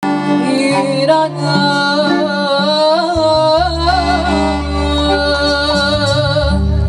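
A woman singing a Moroccan chaabi folk song live over a band of keyboards, violin and drums, her notes wavering and ornamented. A deep bass line comes in about three seconds in.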